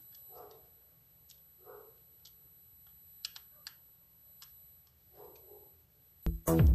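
Faint, scattered small clicks and ticks of a screwdriver loosening the terminal screw of a three-pin wall socket. Loud electronic music cuts in suddenly near the end.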